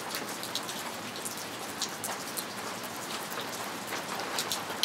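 Steady rain falling, with many separate drops tapping sharply against a constant hiss.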